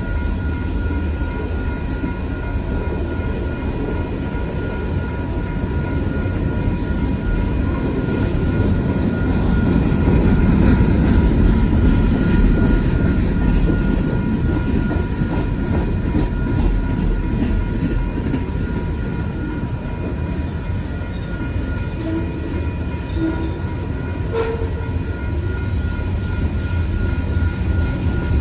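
Union Pacific manifest freight train's cars rolling past at a grade crossing: a steady low rumble of wheels on rail with some clatter, swelling about ten seconds in. Thin steady high tones sound above it.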